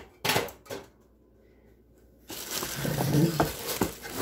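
Two or three sharp knocks, then a dense crinkling and rustling of plastic wrap and cardboard as a plastic-wrapped square pan is pulled out of its shipping box.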